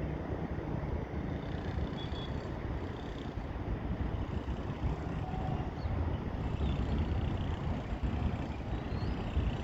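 Steady, low outdoor rumble with a few faint, short high chirps scattered through it.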